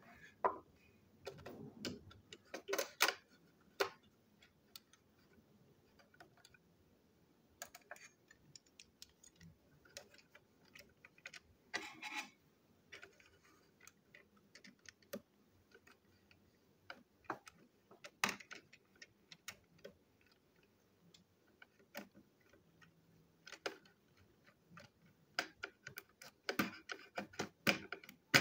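Small clicks, taps and rattles of hard plastic toy-train parts being handled, with a small screwdriver driving screws into the plastic chassis. The clicks come in irregular clusters with quiet gaps between, busiest near the start and near the end.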